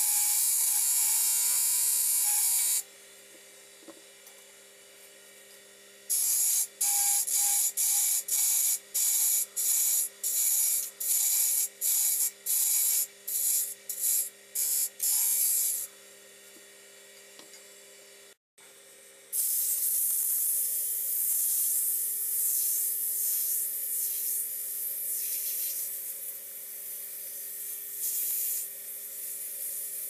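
A flat file held against a wooden workpiece spinning on a wood lathe: a steady rasping hiss, then a quick run of short file strokes at about one and a half a second. After a short break, continuous sanding hiss of rising and falling loudness as sandpaper is held to the turning wood. The lathe motor's steady hum runs underneath.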